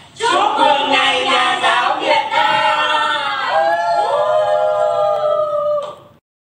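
Singing with long, held notes, fading out near the end.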